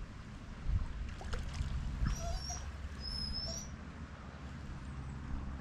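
Wind rumbling on the microphone, with a few brief, faint, high-pitched chirps about two and three seconds in.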